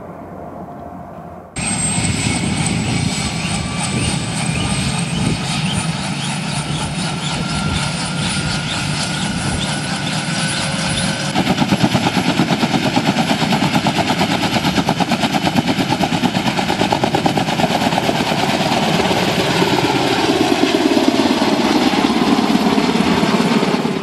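Kaman K-MAX helicopter, faint and distant at first, then abruptly close by after about a second and a half. Close up, its two intermeshing rotors chop rapidly over the whine of its turboshaft engine, and the whine rises slightly in pitch. The sound cuts off suddenly at the end.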